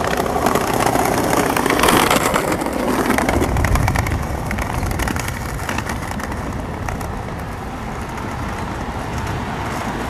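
Street traffic noise of cars passing on a city road, with a low rumble, louder in the first few seconds.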